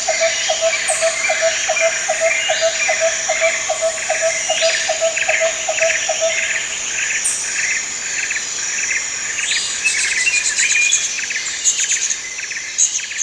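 Jungle ambience: many birds calling and chirping over a steady high-pitched insect drone. A lower pulsing call repeats about four times a second and stops about halfway through.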